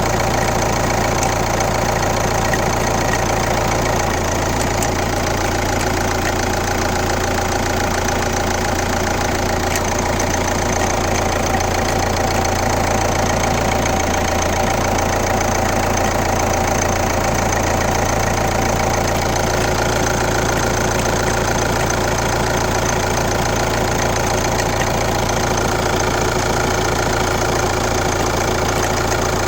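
Kia Ceed 1.6 CRDi's D4FB four-cylinder common-rail diesel engine running steadily at idle, with the weird noise its owner is trying to trace.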